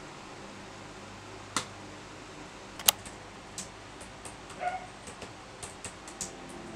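Typing on a laptop keyboard: two sharp clicks in the first few seconds, then a quick run of keystrokes over a low steady hum. A brief pitched yelp sounds about halfway through.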